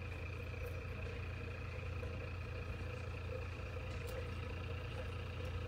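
A boat's engine running steadily: an even low drone with a fainter steady tone above it, heard from on board.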